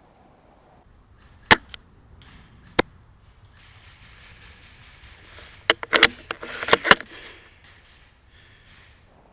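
Sharp snaps and clicks of airsoft play: a couple of single cracks, then a quick cluster of about seven, over a rustling hiss.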